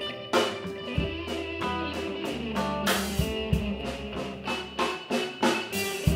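Instrumental background music: guitar-led, with regular drum hits.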